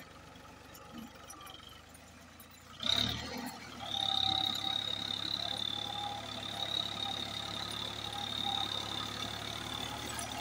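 Ford tractor's diesel engine running under load as it works through a flooded, muddy field, faint at first and louder from about three seconds in. From about four seconds in, a steady high-pitched whine sits over the engine.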